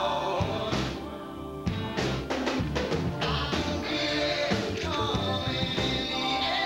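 Background music: a rock-style song with drums keeping a beat.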